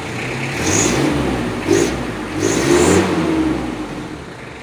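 Mitsubishi L300's diesel engine revved in a few blips and let back down, its newly fitted flexible exhaust pipe adding a short high whistle on each rev: the 'ngir-ngir' whistle meant to mimic a turbocharged Canter truck.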